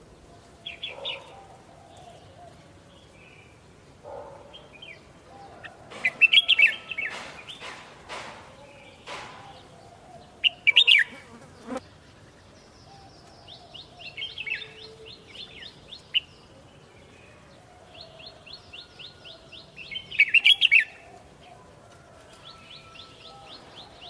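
Red-whiskered bulbul singing short, loud whistled phrases every few seconds, with fast runs of repeated high notes between them. A few sharp knocks come about a quarter of the way in.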